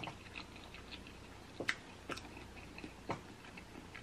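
Quiet chewing and mouth sounds of someone eating a boiled egg, with a few short, sharp wet clicks.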